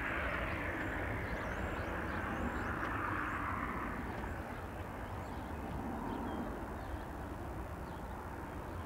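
Jet engines of a Frontier Airlines Airbus A320-family airliner at takeoff power as it lifts off and climbs away: a steady rushing roar over a low rumble that slowly fades over the first few seconds.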